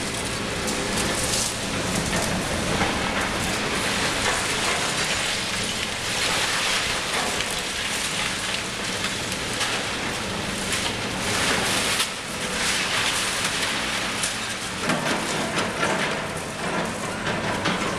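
Liebherr 954 long-front demolition excavator at work: continuous crackling and crunching of broken concrete and rubble, with its diesel engine running steadily underneath.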